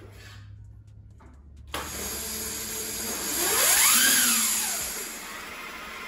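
Kunray 72V 2000W brushless motor, driven by a freshly wired Kelly controller, spinning the rear wheel of an electric mini bike up on a stand. It kicks in with a click about two seconds in, and its whine rises in pitch to a peak and falls back as the throttle is twisted and released, over a steady hiss.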